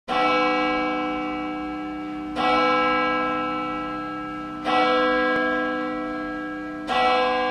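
A deep, bell-like tone struck four times, about every two and a quarter seconds, each strike ringing on and slowly fading. It is the opening sting of a logo intro's music.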